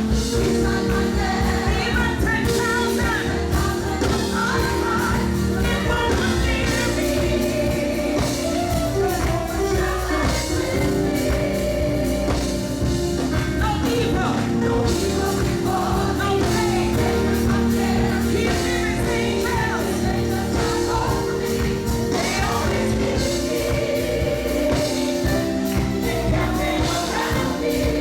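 Live gospel worship music: a band with singers, a choir-like group of voices singing over sustained chords and a steady beat.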